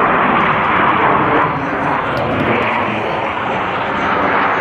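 Loud, steady jet engine noise from Blue Angels F/A-18 Hornets flying overhead in close formation.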